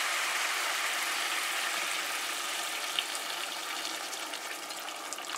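Water poured in a steady stream into a pot of cooked-down goat curry, splashing over the meat, the stage where water is added so the curry can simmer. The pouring gets gradually quieter toward the end.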